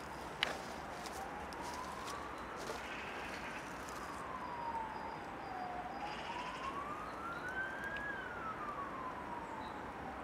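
Emergency vehicle siren in a slow wail, its pitch rising for about two and a half seconds and falling for about two and a half, twice over.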